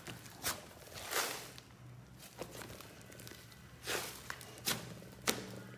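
Thick slime mixed with soft clay being squished, stretched and folded by hand: irregular squishing sounds with several louder pops, about one a second.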